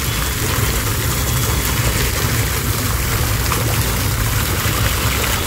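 Small fountain's vertical water jet splashing steadily back into its basin, with a steady low rumble underneath.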